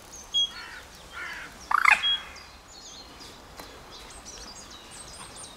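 Single short beeps from an electronic carp bite alarm, about half a second in and again about two seconds in, as the line is set on the rods. Birds chirp throughout, with one louder bird call just before the second beep.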